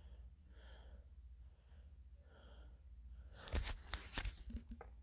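Faint breathing close to a phone's microphone. From about three and a half seconds in comes a run of sharp clicks and rustles as the phone is handled and tapped.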